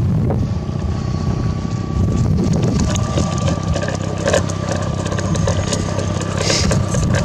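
Cannon Digi-Troll 10 electric downrigger lowering its weight, its motor giving a steady whine from about half a second in as the spool pays out cable, over a low rumble of wind and boat noise.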